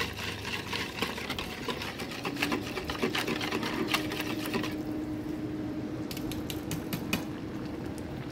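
A metal utensil stirring coconut milk in a plastic bowl, rapid clicking and scraping against the bowl's sides. The clicks thin out to a few scattered taps about five seconds in, over a faint steady hum.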